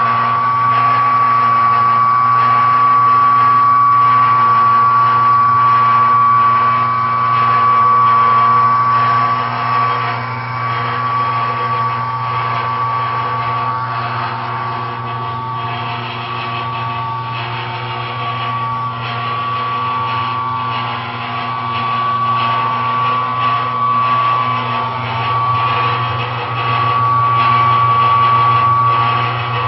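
Mortar mixer running steadily: a continuous motor hum with a high whine over it, a little quieter through the middle stretch.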